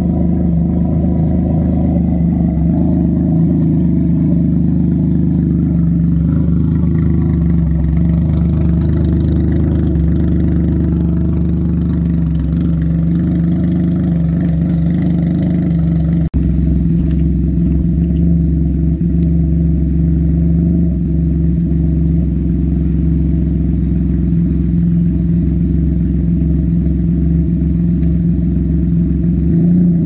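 Can-Am Ryker Rally's Rotax 900 ACE three-cylinder engine idling steadily through an aftermarket exhaust. There is a brief break about 16 seconds in, after which the sound is a little duller.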